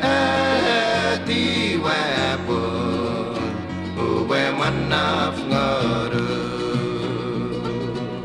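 Music: a song with guitar accompaniment, steady bass notes under a melodic line that glides up and down.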